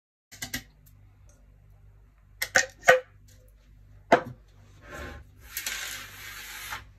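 Kitchenware being handled on a countertop: several sharp clicks and knocks, then about a second of scraping noise near the end.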